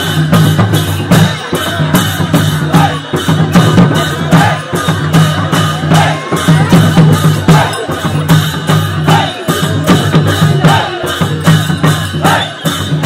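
Traditional Newar percussion music for the Lakhe dance: drums and clashing cymbals playing a fast, even beat, about four strokes a second.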